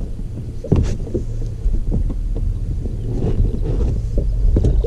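Steady low rumble of wind on the microphone aboard a small fishing boat, with a few short knocks and clunks about a second in.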